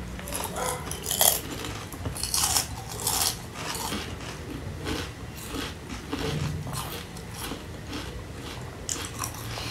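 Close-up chewing of a crispy fried snack: many short, irregular crunches, mixed with a light clink of cutlery.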